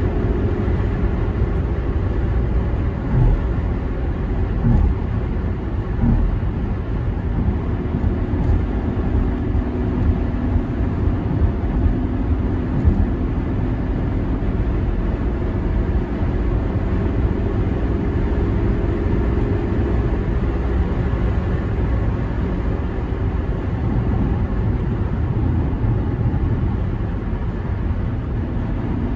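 Range Rover Vogue (L322) cruising at steady highway speed, heard from inside the cabin: an even engine hum under a constant rumble of tyre and road noise, with no revving.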